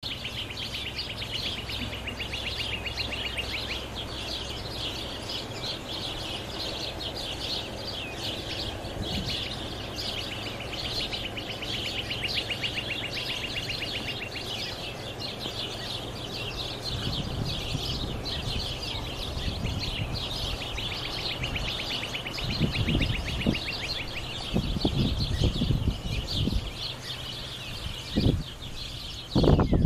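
Birds singing a dawn chorus of rapid repeated chirps and trills, over the low steady drone of a lobster boat's engine. Irregular low rumbles come in during the second half and grow stronger near the end.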